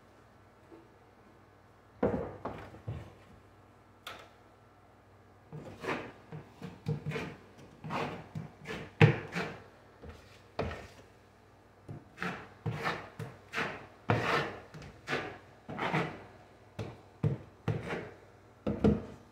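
A metal drywall knife scooping joint compound out of a plastic bucket, scraping against the bucket's rim, and smearing the mud onto drywall. It comes as a string of short, irregular scrapes and knocks that start about two seconds in.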